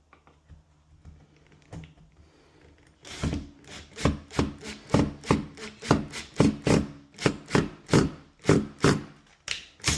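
Hand tool rubbing on wood in quick repeated scraping strokes, about three a second, starting about three seconds in after a few faint clicks.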